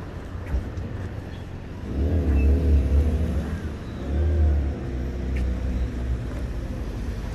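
A motor vehicle passing on a city street, its engine growing louder about two seconds in and easing off after about five seconds, over a steady low traffic rumble.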